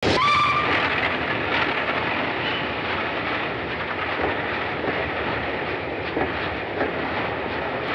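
Steam train running: a short whistle tone in the first half second, then a steady rumble of the moving train with scattered clicks of wheels over rail joints.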